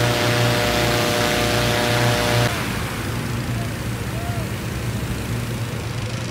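Hot-air balloon being inflated: the propane burner firing a flame into the envelope, heard as a roar over the steady low hum of the inflator fan's engine. The sound drops abruptly and gets quieter about two and a half seconds in.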